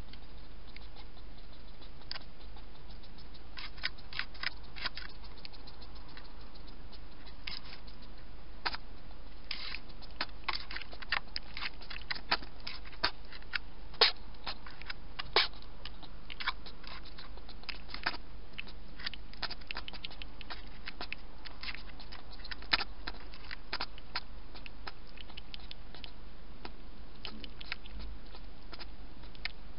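A wild hedgehog crunching dry food pellets from a bowl: irregular sharp crunches and clicks, thickest around the middle and thinning out near the end, over a steady low hum.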